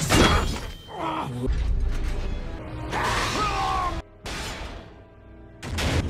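Action soundtrack of a CGI robot fight: music mixed with metallic crashes and whooshes, opening on a heavy hit, with a brief drop-out about two-thirds of the way through.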